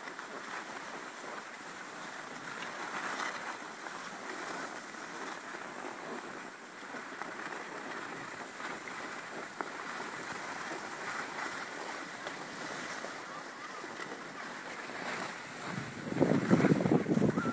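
Steady rushing hiss of skiing downhill: skis sliding over packed snow, with wind on the microphone. About a second and a half before the end it grows much louder into a rough rumbling noise.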